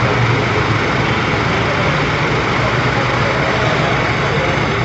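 Fire truck's engine running steadily at idle, a low unbroken hum with a constant hiss over it.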